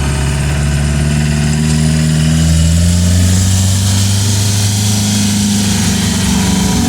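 1980s Toyota Land Cruiser's engine running under way, its pitch rising slowly over the first few seconds and dipping briefly near the end, over a steady rushing hiss.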